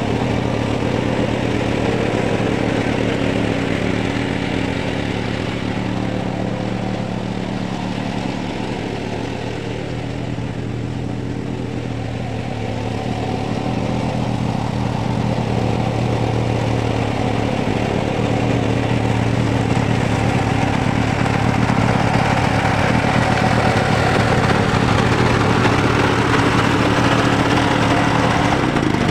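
Ogawa XT600 self-propelled flail mower's 420cc single-cylinder OHV engine running steadily as its flail rotor mulches brush and grass. It dips a little about a third of the way in, then grows louder in the last third.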